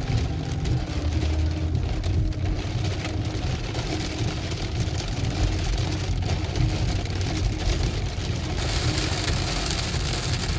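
Car driving through heavy rain, heard from inside the cabin: a steady low road and engine rumble under the hiss of rain on the car, which gets noticeably louder about eight seconds in.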